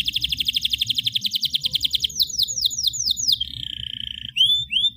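Domestic canary singing: a fast rattling trill, then about six quick downward-sweeping notes, a short steady note, and two rising whistled notes near the end.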